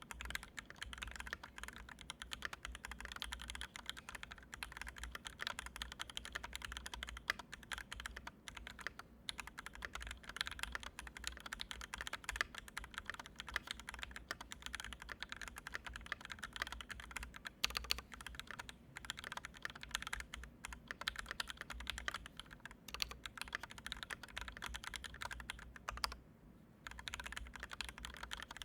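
Continuous fast typing on a Canoe Gen2 mechanical keyboard with Original Aspiration switches, an aluminium plate, Durock stabilizers, GMK Red Samurai keycaps and two extra layers of foam. The keystrokes run as a dense clatter, with one short pause near the end.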